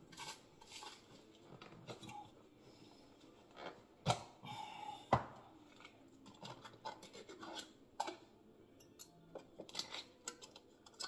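Kitchen handling noises while breadcrumbs go on salmon in a baking dish: scattered light clicks, rustling and scraping, with two sharper knocks about four and five seconds in.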